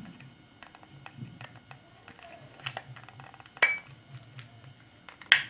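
Faint small clicks and scrapes of a fuse being worked out of its holder on a digital multimeter's circuit board, with a louder click about three and a half seconds in and a sharp click near the end.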